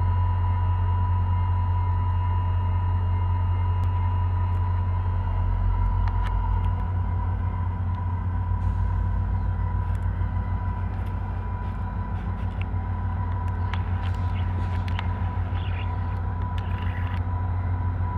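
Three VIA Rail F40PH-1 diesel-electric locomotives running as the train pulls out, a loud steady low engine rumble with a constant high whine over it. From about halfway through the rumble throbs and scattered clicks and short squeaks come in as the train draws nearer.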